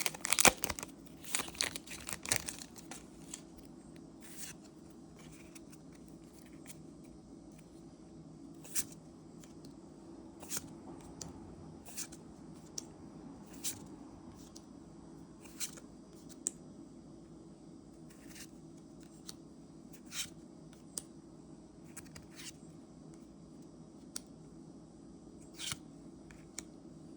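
A booster pack's foil wrapper being torn open for the first couple of seconds. After that, single soft clicks come every second or two as the trading cards are handled one at a time, over a low steady room hum.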